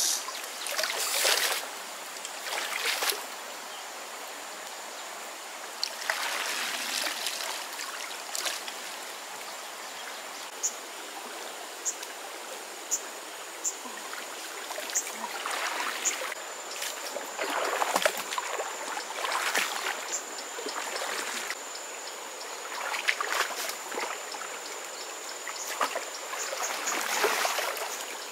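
Shallow creek water flowing steadily, broken by repeated splashes and sloshes of water as the stream is waded and a cast net is lifted and worked. A few short high chirps come in the middle, and a faint high steady whine runs through the second half.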